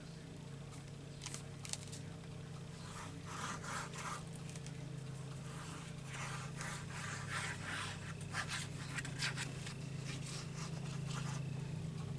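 Tip of a nearly empty glue bottle scraping and rubbing on paper in short, irregular strokes while the last glue is worked out of it, over a steady low hum.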